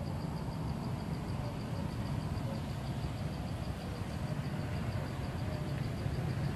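Low, steady engine rumble of a motor vehicle, growing louder near the end.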